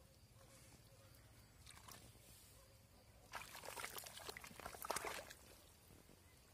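Hands working a bundle of seedlings over wet, muddy ground. For about two seconds from the middle there is wet crackling and rustling, made up of many quick clicks and small splashes. Around it the sound is near silence.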